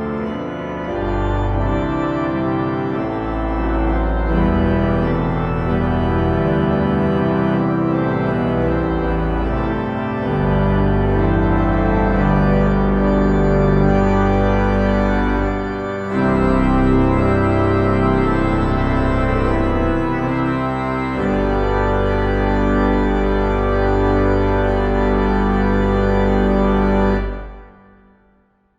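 Church organ playing a hymn in full sustained chords over a deep bass line, phrase by phrase with short breaths between phrases. The final chord is released near the end and dies away in the church's reverberation.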